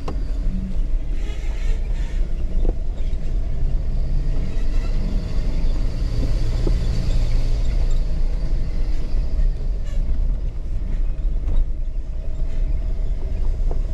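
Jeep's engine running at low speed with the rumble of the vehicle crawling over a rocky four-wheel-drive trail, with a few light knocks along the way.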